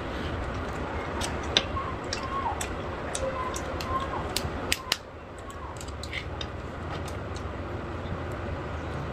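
Eating sounds: sharp clicks and cracks, as of crab shell being broken and chewed, scattered over the first half, with a steady low rumble underneath.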